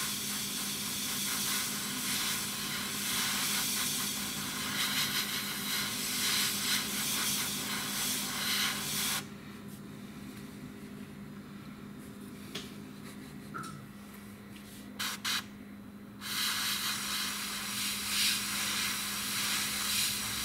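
Gravity-feed airbrush spraying black paint: a steady hiss of air, a bit loud with paper masking around the model. It stops about nine seconds in, with a few small clicks, and starts again about seven seconds later, over a low steady hum.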